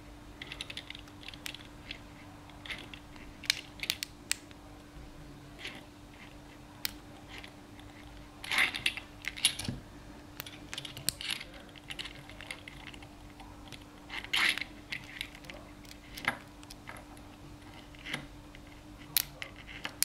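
Lock pick working the pin stack of a Titan K pin-tumbler padlock under tension: scattered light metallic clicks and scrapes, with a few louder scraping clusters partway through. The padlock has security pins, which the picker believes to be spools.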